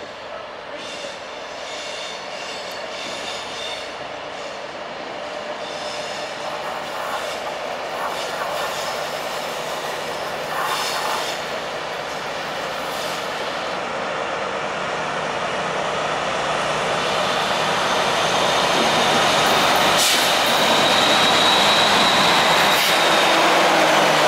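DB Cargo Class 60 diesel locomotive hauling a heavy steel train, approaching and passing close by, growing steadily louder. A high wheel squeal comes in near the end as the locomotive draws alongside.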